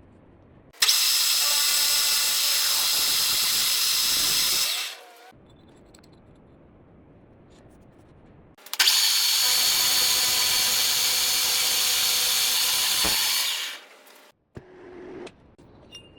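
Motorized tool running in two bursts of about four and five seconds. Each starts suddenly with a steady high whine over a hiss and then dies away.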